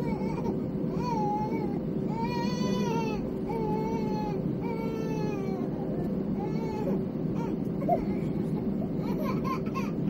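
A baby crying in a string of drawn-out wails, each about a second long, over the steady hum of an airliner cabin.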